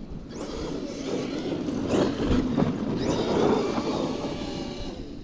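Traxxas X-Maxx RC monster truck driving hard over grass and dirt: the electric motor whines as it speeds up, and the tyres tear at the ground. The sound swells to its loudest around the middle and eases off near the end.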